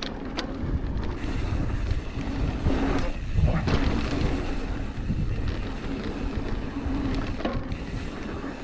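Wind rushing over the microphone with the low rumble of mountain-bike tyres rolling fast over a dirt trail, and a few sharp knocks as the bike rattles over bumps.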